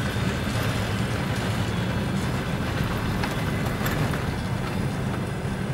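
Passenger coaches rolling into a station: a steady rumble of steel wheels on rail, with a few faint clicks about three and four seconds in.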